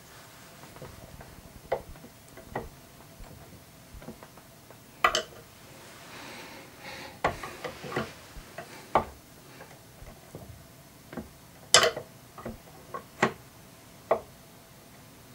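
Irregular clicks and knocks of hard statue parts being handled and fitted onto a statue's column, with two louder knocks, one about five seconds in and one near twelve seconds.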